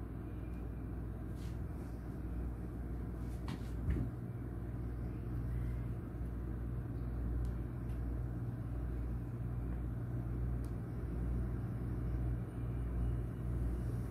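Steady low background rumble with a few faint clicks, one slightly louder knock about four seconds in.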